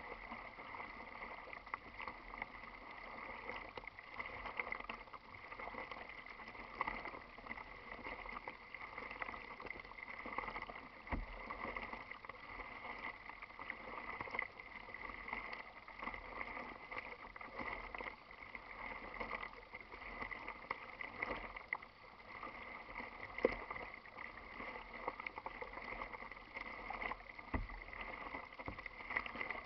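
Small waves lapping and splashing against the plastic hull of a moving kayak, with paddle splashes and a few sharper knocks.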